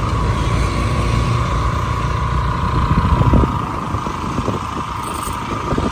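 Road traffic and vehicle engines heard while travelling along a busy road, with a dense low rumble and a steady high whine that weakens after about four seconds.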